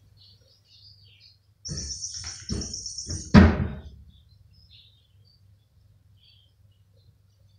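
Clattering knocks of cardboard and toy being batted about, with a high steady whine over them for about a second and a half, ending in one loud thunk about three and a half seconds in that rings briefly. Faint bird chirps in the background.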